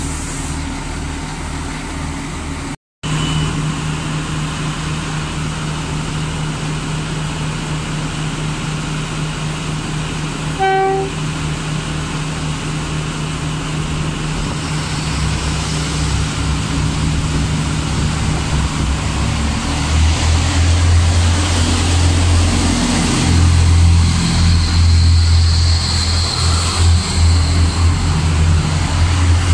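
Irish Rail diesel multiple unit's underfloor engines running at the platform with a steady low drone. A short horn toot comes about eleven seconds in. From about halfway the engines grow much louder as the train pulls away past. The sound cuts out briefly about three seconds in.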